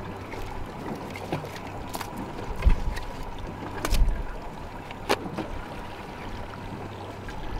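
Sharp knocks and clatter as a plastic crab trap is handled and re-baited with fish pieces on a boat's deck, with about five distinct knocks, the loudest about three and four seconds in. A steady low hum runs underneath.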